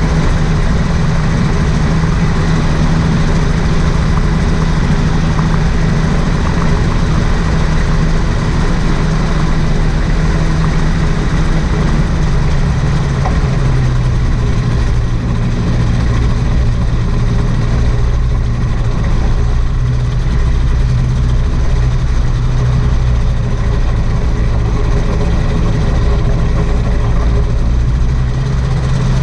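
Rotax 582 two-stroke twin engine of a homebuilt float gyroplane running steadily while it taxis on the water. Its pitch drops about halfway through and holds lower as the engine slows.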